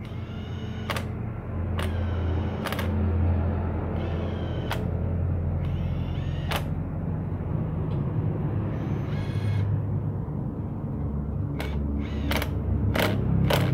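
Cordless impact wrench running bolts into a Honda motorcycle engine's crankcase cover: repeated short runs of the motor spinning up in pitch, over a steady low buzz, with sharp clicks between runs that come closer together near the end as the bolts are tightened.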